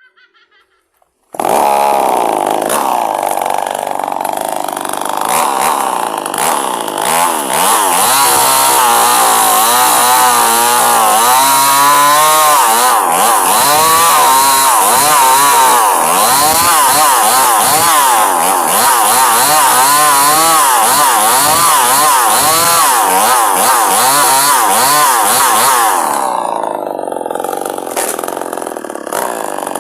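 Chainsaw comes in suddenly about a second and a half in and runs at high speed, its pitch wavering up and down as it bites into a log being ripped lengthwise; the engine eases briefly near the end, then picks up again.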